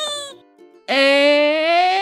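A brief voice-like sound, then about a second in a long drawn-out call that slowly rises in pitch, over light ukulele background music.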